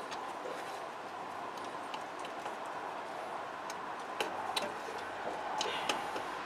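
Scattered light clicks and taps as gloved hands work a spring clip onto the top of a rear air suspension bag, with several sharper clicks about four to six seconds in, over a steady hiss.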